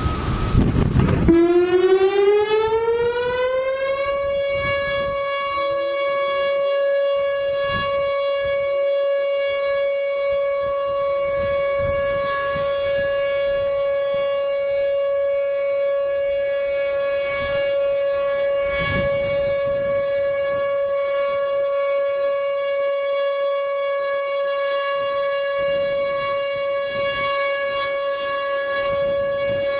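Whelen Vortex R4 electronic tornado siren sounding its steady alert signal in a test. It glides up in pitch for about three seconds, then holds one steady tone. Wind noise on the microphone comes just before it starts.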